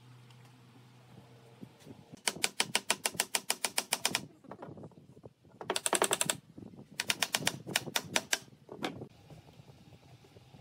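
Ratchet wrench clicking rapidly as nuts are tightened on a threaded steering rod, in three runs of about ten clicks a second, the middle run faster.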